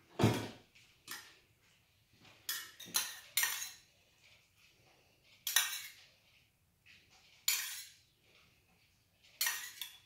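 A metal spoon scraping and clinking against a pot in about eight short, separate strokes, the first the loudest, as béchamel sauce is spooned out onto a lasagne layer.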